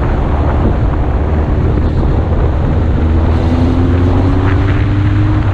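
Motorcycle engine running under way, its pitch rising slowly from about three seconds in as it accelerates, with heavy wind noise on the microphone.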